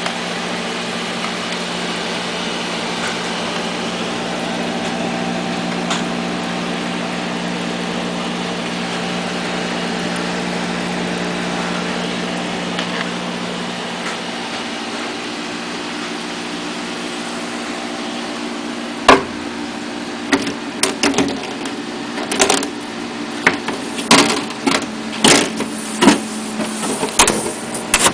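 Water-cooled desktop PC running: a steady hum and whir from its cooling fans and pump, with a low drone under it. From about two-thirds of the way in, a series of sharp knocks and clunks, louder than the hum.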